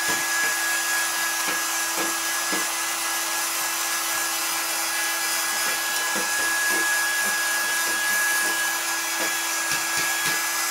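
Small electric dusting brush running with a steady whine, its bristles rubbing dust off a circuit board in short, irregular strokes.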